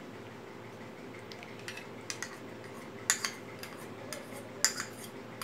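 Spoon clinking against a bowl while thick beaten yogurt is spooned out over raw chicken: a few short, sharp clinks in small clusters about two, three and four and a half seconds in, over a faint steady hum.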